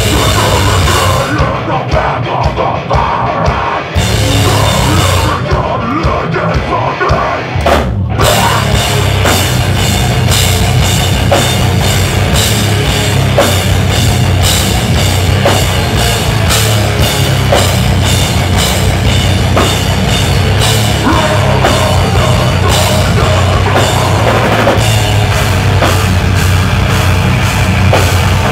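Deathcore band playing live: heavy guitars, bass and fast, dense drumming. For the first several seconds the cymbals drop out in stop-start stretches, then the full band with cymbals comes in about eight seconds in and keeps going.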